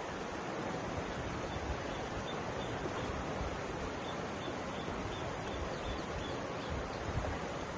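Mountain river flowing steadily over rocks, an even rushing of water.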